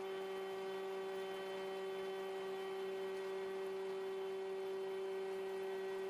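Tesker die thread roller running with a steady, unchanging hum made of several fixed tones while its dies roll an Acme thread into a steel bar.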